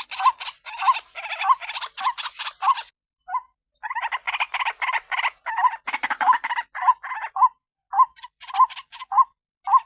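White-breasted waterhen (ruak-ruak) calling: a rapid run of harsh croaking notes, nearly two a second, with a short break about three seconds in.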